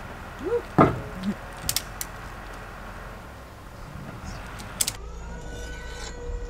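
Heavy machine's engine running steadily under a few sharp metal clinks and a loud knock of ratchet-strap hardware as a beam is rigged for lifting. About five seconds in, a steady high motor whine comes in.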